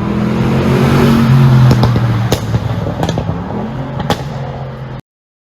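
Mercedes-AMG GT 63 S's twin-turbo V8 revved up and then falling back. As the revs drop, the exhaust lets out several sharp pops and crackles, four of them loudest.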